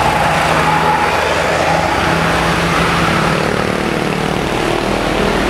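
Diesel engine of an Isuzu box truck running as it drives slowly past close by: a loud, steady drone with a low hum under it.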